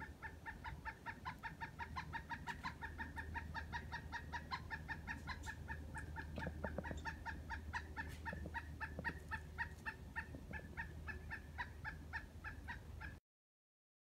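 Pileated woodpecker calling: a long, rapid series of evenly spaced, clear notes, about four or five a second, that cuts off suddenly near the end.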